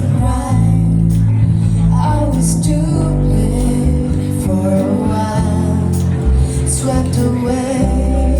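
Live band music: a woman singing a melody over a band with sustained bass notes and regular cymbal strikes.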